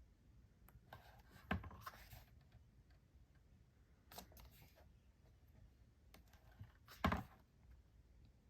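Pages of a glossy photobook being handled and turned: a few brief paper flicks and rustles, the loudest about seven seconds in, over faint handling noise.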